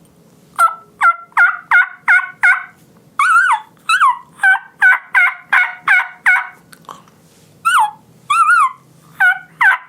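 Hen turkey calling on a diaphragm mouth call: runs of yelps, about three a second, each note breaking from a high to a lower pitch, with a few longer whines that rise and fall in pitch worked into the middle of the sequence.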